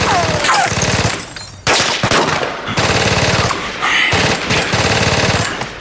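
Rapid machine-gun fire in long bursts, each a fast, even string of shots, with a short break about one and a half seconds in.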